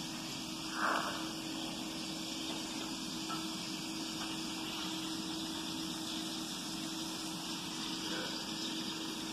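Steady background hiss with a low, even hum, and one soft, dull sound about a second in.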